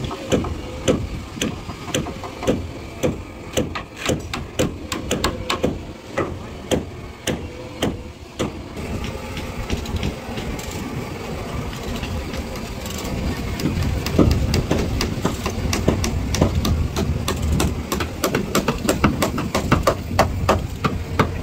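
Hammer blows on timber, nailing an upright wooden cabin post to the hull's beam; irregular strikes about two a second, pausing midway and coming quicker near the end. A low engine rumble joins about two-thirds through.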